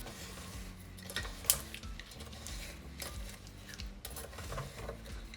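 Sugar being stirred in a saucepan as it melts over very low heat: scattered scrapes and clinks of the stirring utensil against the pan, with one sharper clink about a second and a half in.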